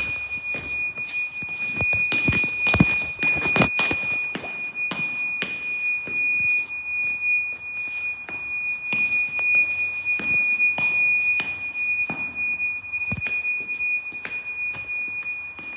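A steady, high-pitched electronic beeping tone of unknown origin that holds through the whole stretch, with irregular knocks and clicks under it.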